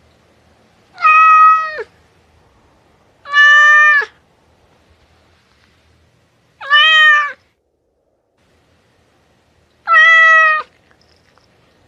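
Domestic cat meowing four times, evenly spaced about three seconds apart. Each meow is short, just under a second, holding a steady pitch and then dropping sharply at the end.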